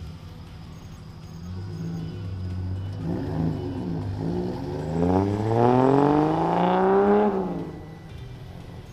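Ford Falcon sedan's engine pulling away under acceleration. The note rises and dips, then climbs steadily for a couple of seconds, and cuts off and fades as the car drives off.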